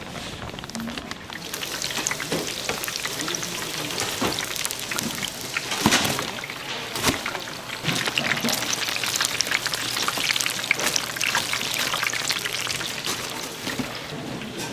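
Hot oil crackling and sizzling as food deep-fries, with a couple of sharp knocks around the middle.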